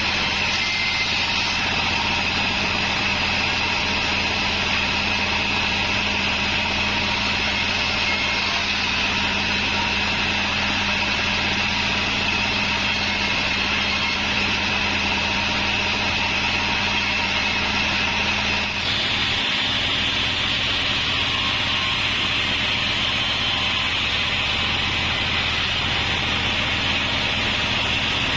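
Band sawmill (36-inch bandsaw) running and sawing a timber log, a steady loud machine whine with held tones. About two-thirds of the way through, the tone changes abruptly: one high tone drops out and the higher hiss grows stronger.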